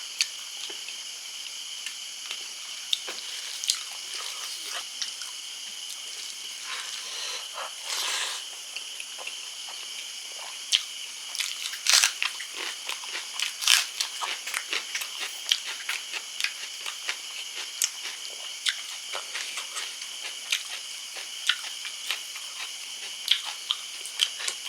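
Close-miked eating: a person chewing and crunching food, with many sharp irregular mouth clicks and crunches that grow more frequent about halfway through.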